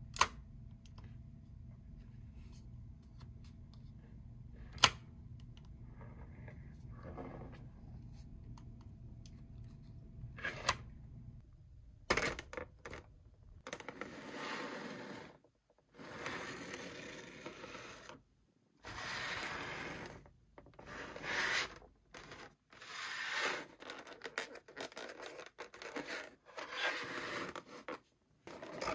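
Toy packaging being handled and opened by hand. First come a few sharp clicks over a low hum; from about halfway through, repeated bursts of scratching and tearing.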